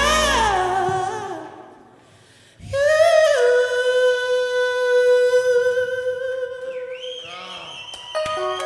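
A man singing into a microphone over a backing track that drops out about two seconds in; he then holds one long note alone, with a wavering vocal run near the end as the backing music comes back in.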